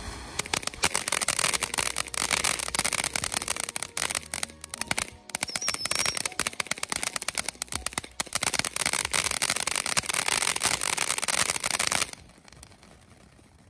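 Freedom Fireworks' Live Wire fountain crackling: a dense, rapid run of sharp snaps from its crackling stars. It starts about half a second in and cuts off suddenly about a second before the end.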